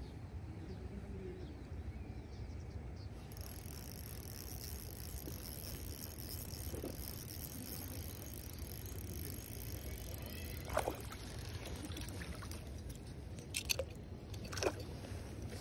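Hooked trout splashing at the water's surface as it is drawn to the landing net: a few short splashes in the second half, the last two close together, over a steady low rumble.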